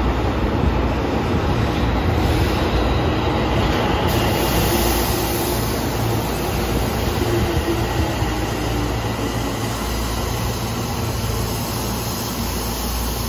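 Tokyo Metro 16000 series subway train passing at low speed along an underground station platform: a steady rumble of wheels on the rails and running gear.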